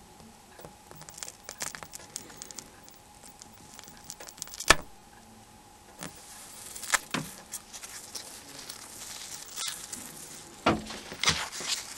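Flex cable of a Nokia N95's flash module being peeled off its adhesive with a small tool: faint crackling and scattered small clicks, with one sharper click a little before halfway.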